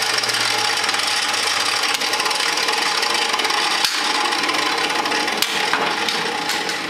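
10-inch table saw with an 84-tooth Freud Diablo non-ferrous blade cutting through a 40x80 mm aluminum extrusion: a loud, steady cutting noise with a few sharp ticks, starting to ease off at the very end.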